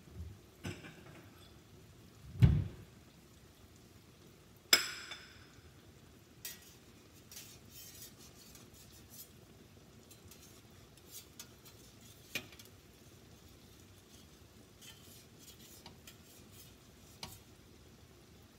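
Cookware clatter: a slotted spatula clinking and tapping against a stainless steel frying pan. A dull thump about two and a half seconds in and a ringing metal clink near five seconds are the loudest, followed by scattered light clicks.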